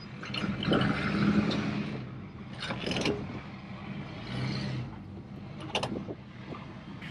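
Metal clanking and scraping from a boat trailer's hand winch and safety chain at the bow stand as the winch is worked, with a few sharp clicks about three seconds in and again near six seconds.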